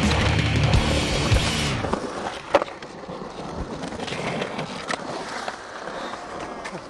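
Music plays for the first two seconds, then cuts off abruptly, leaving skateboard wheels rolling on the concrete bowl. A sharp clack of the board comes about two and a half seconds in, with lighter knocks later as the skater works the coping.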